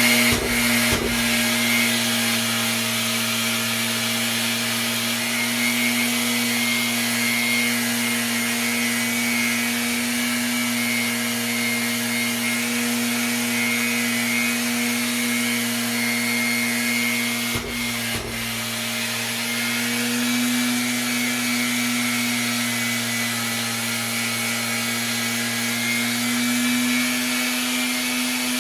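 Makita orbital sander sanding an alloy wheel with 320-grit paper, hooked to a dust extractor that runs with it: a steady motor hum with a rasping hiss. The sound dips briefly about a second in and again around eighteen seconds.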